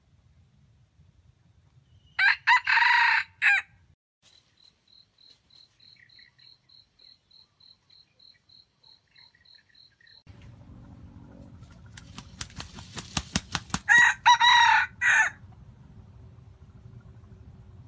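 Junglefowl roosters crowing twice, short cock-a-doodle-doo calls about two seconds in and again near the end. A quick run of sharp clicks comes just before the second crow.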